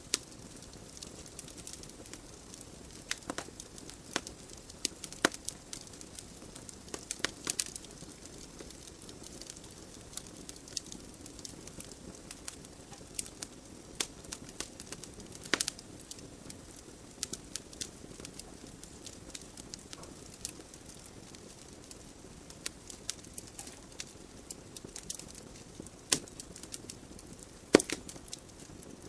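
Wood logs burning in a fireplace: irregular sharp crackles and pops over the steady rush of the flames, with a louder pop near the end.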